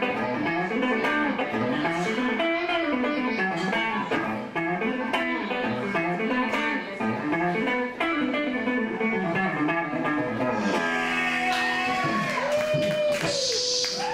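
Unaccompanied electric guitar played through an amplifier: quick rising and falling runs of picked notes, slowing about eleven seconds in to longer held notes that bend in pitch.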